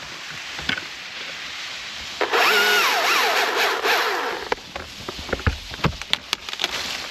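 Chainsaw cutting tree limbs: its motor pitch rises, dips and falls for about two seconds as it works through the wood. A run of sharp cracks and clicks follows.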